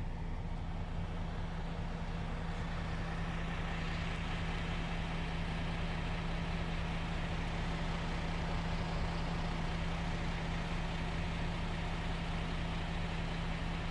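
Heavy truck's diesel engine running steadily at low, unchanging revs, a deep even hum heard from inside the cab, with a steady hiss above it.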